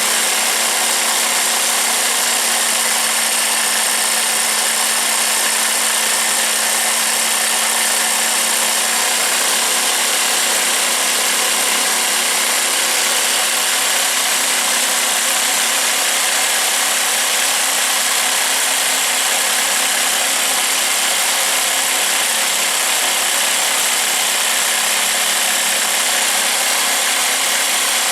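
Homemade jigsaw table running steadily at constant speed during a test cut: a steady motor hum under a bright high hiss, with the blade riding in a freshly fitted V-bearing guide.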